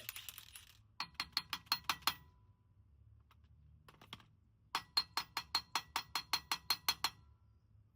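Rapid metallic clicking from a hand tool working on the truck's suspension hardware, in two runs of about seven ringing clicks a second: one about a second in, a longer one from about five seconds in.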